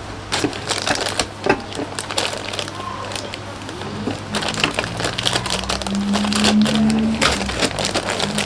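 Clear plastic bags around plastic model-kit sprues crinkling and crackling as they are handled, with short clicks of the plastic frames. Low steady tones come in about halfway through.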